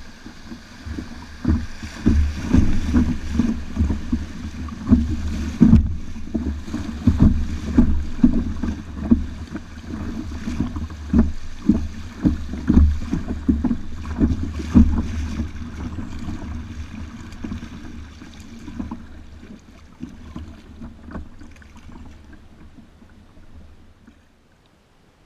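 Rushing, splashing river water slapping against a kayak's hull as it runs a shallow riffle, with many low knocks and thumps. It fades away near the end as the kayak reaches calm water.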